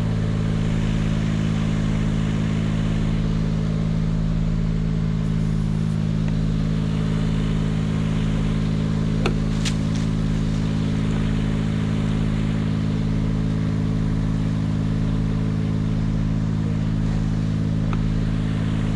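Vehicle engine running steadily at a constant speed, with a couple of brief clicks about halfway through.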